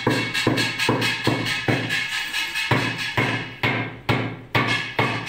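Background music with a steady, fast percussive beat.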